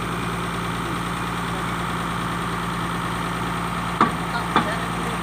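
Excavator's diesel engine idling steadily, with two sharp metallic clanks about half a second apart near the end, from work on the track chain.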